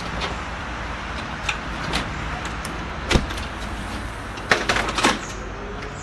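A steady low outdoor rumble, broken by a handful of sharp knocks and taps as a person walks up across a backyard. The loudest is a deep thump about three seconds in, and three quicker ones come close together near the end.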